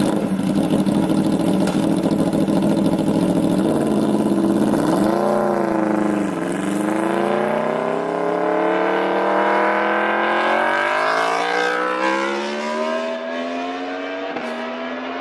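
Litre-class superbike's four-cylinder engine running on the road. It holds a steady note at first; about five seconds in the revs rise and drop sharply, and then they climb steadily as the bike accelerates.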